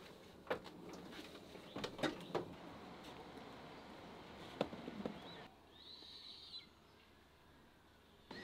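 Irregular clicks, knocks and footfalls of someone moving through a narrowboat cabin carrying a guitar and its case, over a low hiss. A bird chirps briefly about six seconds in, after which it is nearly quiet until a short rising chirp at the very end.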